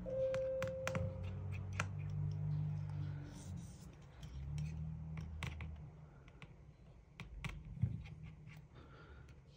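Precision screwdriver clicking and scratching against the tiny internal screws of an opened iPhone SE 3 as they are backed out, an irregular scatter of small sharp clicks.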